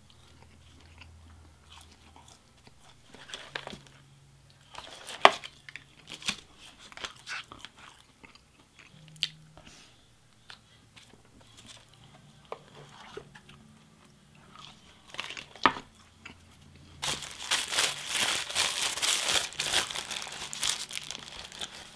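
Close-miked eating: sparse chewing, crunches and clicks as fries and spoonfuls of vanilla Frosty are eaten. For the last five seconds, loud continuous crinkling as a paper burger wrapper is opened.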